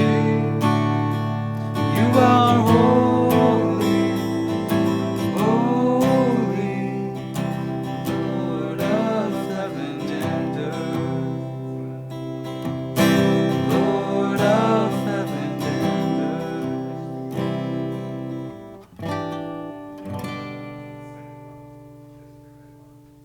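Acoustic guitar strummed with a singing voice, ending on a final chord that rings and fades away.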